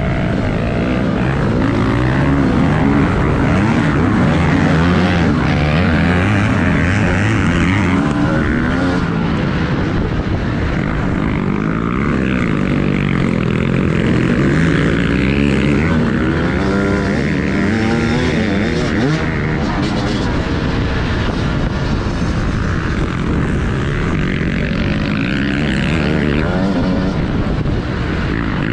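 TM Racing 250 motocross bike engine, ridden hard, revving up and down continuously.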